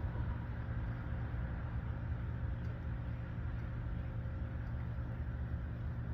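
Steady low background rumble with a faint even hum, unchanging throughout; no distinct tool or fitting sounds stand out.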